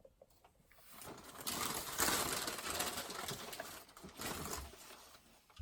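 Rustling and scraping of cardboard boxes and packing material as boxed vinyl figures are handled and pulled from a shipping box. It starts about a second in, is loudest in the middle and fades before the end.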